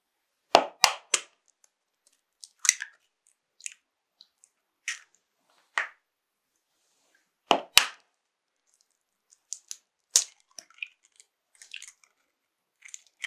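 Eggs being cracked open and dropped into a glass bowl of flour: sharp shell cracks, a quick run of three about half a second in and a close pair around eight seconds in, with single cracks and small clicks of shell between.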